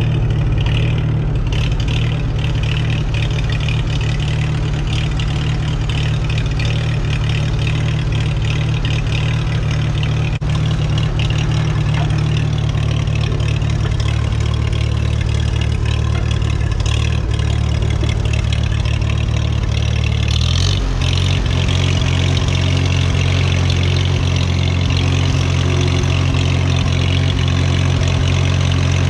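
1942 Farmall H tractor's four-cylinder engine running steadily, loud at the seat. The engine note changes about twenty seconds in as the engine speed shifts.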